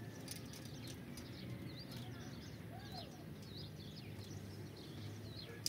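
Faint birds chirping here and there over a steady low outdoor background hum, with one short lower call about three seconds in.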